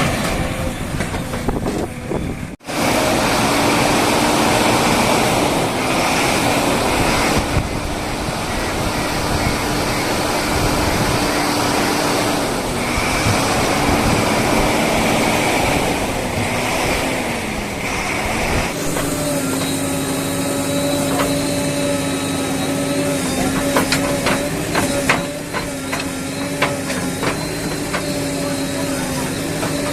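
Diesel engine of a backhoe loader running under varying load, its note dipping in pitch several times and picking back up as the machine works. In the later part there are scattered knocks and clatter over the engine.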